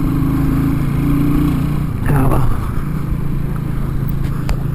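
Huoniao HN125-8 125cc cruiser motorcycle engine running steadily while riding, recorded from the rider's helmet camera, its note holding fairly even with a slight easing about a third of the way in.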